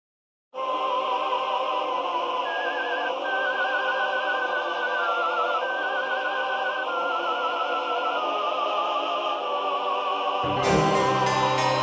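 Soundtrack music: an operatic-style voice holding long notes with wide vibrato, stepping from pitch to pitch over a sustained backing. A heavy hip-hop beat with deep bass comes in near the end.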